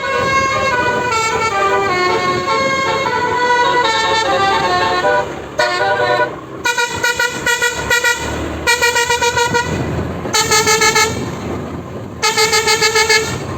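Bus 'telolet basuri' multi-tone air horn playing a tune, stepping from note to note for about five seconds. It then gives four bursts of fast stuttering toots, each lasting about a second.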